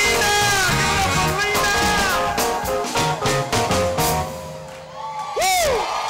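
Live band music from keyboards, guitar and drums. The playing thins out about four seconds in, and a voice lets out a short swooping note, up and back down, just after five seconds.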